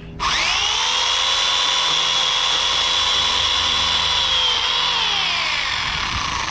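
Electric pole chainsaw motor switching on with a quickly rising whine and running at a steady high pitch for about four and a half seconds. It then winds down with a falling pitch near the end.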